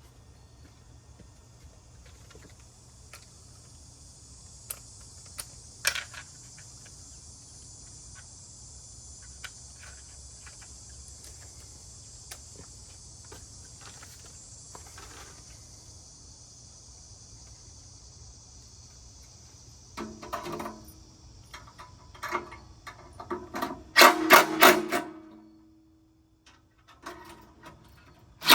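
Metal grill parts being handled and fitted: scattered light clicks over a steady high hiss, then a run of clanks and knocks in the last third, loudest a few seconds before the end.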